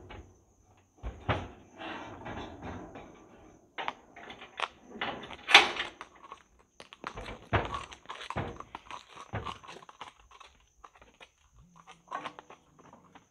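Irregular thuds, knocks and metallic clanks from a steel stock horse trailer as horses are moved in and around it, with the loudest bang about five and a half seconds in.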